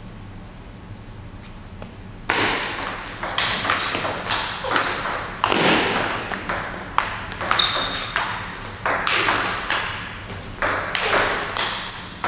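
Table tennis rally: the celluloid ball clicking sharply off the bats and the table in quick succession, two or three hits a second, starting about two seconds in after a quiet pause before the serve.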